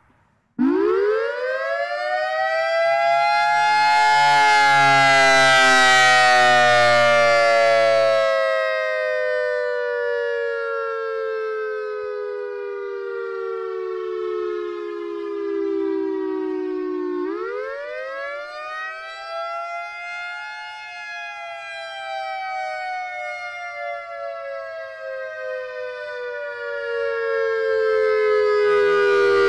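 EOWS 612 electronic outdoor warning siren, six horn speakers, sounding a wail tone. It starts suddenly about half a second in, climbs quickly in pitch, slides slowly down over about thirteen seconds, then climbs and falls a second time.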